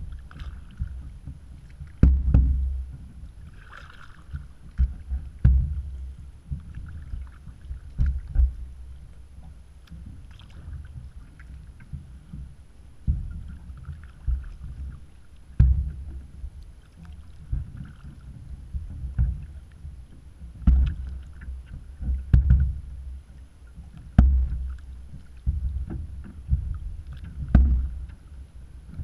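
Kayak paddling: a double-bladed paddle dipping into the water in strokes every second or two, with splashing and low bumps against the boat.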